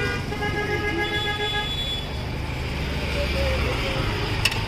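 Street traffic rumble with a vehicle horn held steadily for about the first two seconds. A couple of sharp clicks come near the end.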